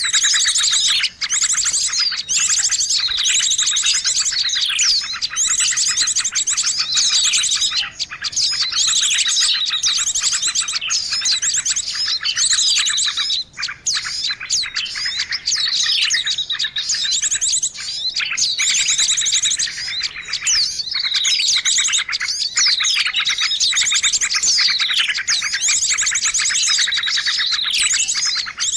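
Songbird lure recording: dense, continuous high chirping and rapid trills, with phrases that repeat every couple of seconds and often sweep down in pitch.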